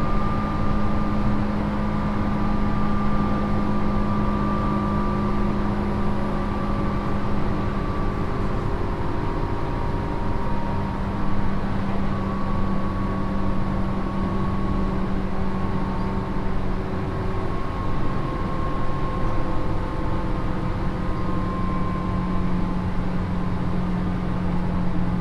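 Running sound inside a Tobu 9000 series armature-chopper electric train, recorded in the motor car that carries the motor-generator and HS-20 air compressor, as it runs between stations. A steady rumble of wheels on rail, with a constant low hum and faint whining tones that sink slowly in pitch.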